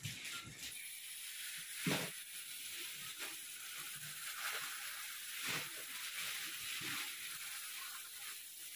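Jaggery water poured through a steel strainer into wheat flour roasted in hot ghee, sizzling steadily, with a few short knocks of utensils.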